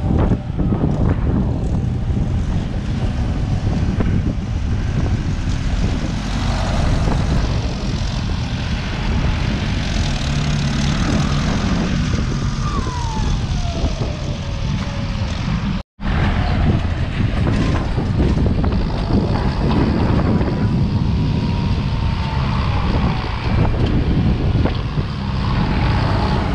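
Farm tractor's four-cylinder diesel engine running hard under load while pushing soil, a dense low rumble. A faint whine falls in pitch about halfway through.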